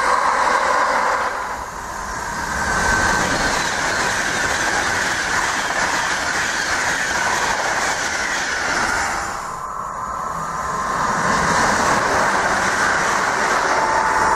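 Electric trains passing through the station at speed: wheels running on the rails with a rattle over the joints. The main one is a Virgin Trains Class 390 Pendolino on the near track, and its noise swells twice and fades near the end.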